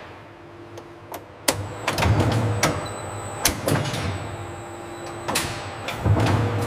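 Stainless-steel cheese molding press at work: a run of sharp metal clicks and knocks over a low machine hum that swells about a second and a half in and again near the end.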